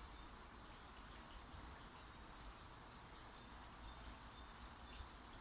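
Near silence: faint outdoor ambience with a steady low background rumble and a few faint, brief high chirps from distant birds.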